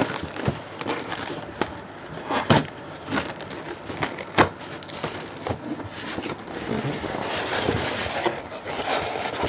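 Plastic packing bag crinkling as it is pulled out of a polystyrene foam packing insert, with scattered sharp clicks and knocks. Near the end, rough scraping and rubbing as the foam insert is lifted off the sewing machine.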